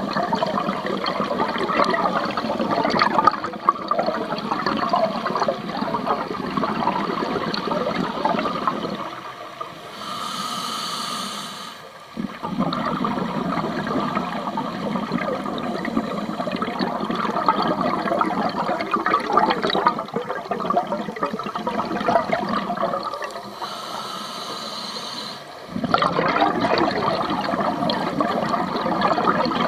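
Scuba regulator exhaust bubbles underwater, a long bubbling rush as a diver breathes out. It is twice broken for a couple of seconds by a quieter hiss, about ten seconds in and again about twenty-three seconds in, the breath drawn in through the regulator.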